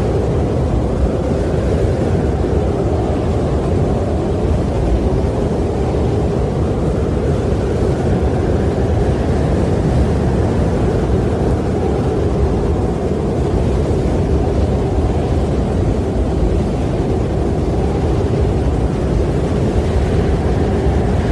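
Strong wind blowing steadily with a deep rumble, swelling and easing slowly.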